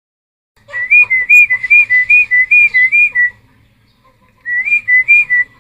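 Cucak timor singing: a loud, clear whistled phrase that swings quickly up and down between two notes, about two and a half seconds long, then a shorter repeat after a pause of about a second.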